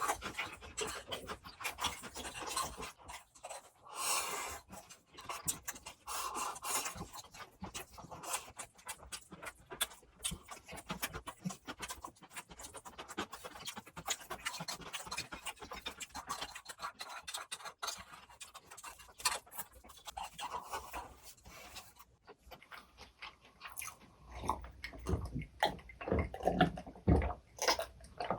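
Close-up chewing and mouth sounds of eating grilled pork belly, with many quick wet smacks and clicks. Near the end the sound changes and heavier low thuds come in.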